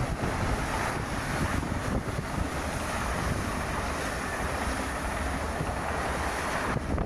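Passenger train passing on the tracks, a steady rushing of wheels on rail. Wind buffets the microphone underneath.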